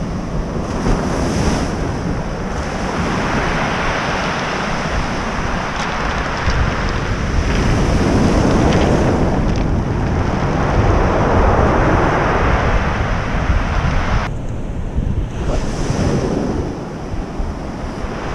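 Surf breaking and washing up a cobble beach, coming in slow swelling surges, with heavy wind rumble on the microphone. A few faint clicks are heard in the middle.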